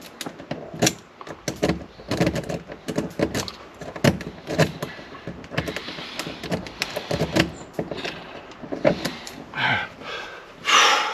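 A padlock being raked open with a rake pick and tension wrench: quick, irregular metallic clicks and scrapes as the rake is worked in and out of the keyway, with the lock rattling on its hasp. There are a couple of louder rattles near the end.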